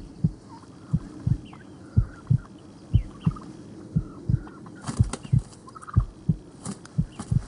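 Heartbeat sound effect: a steady lub-dub double thump about once a second. Behind it, short high calls from the fighting wild turkey gobblers and a few sharp snaps about five seconds in and near the end.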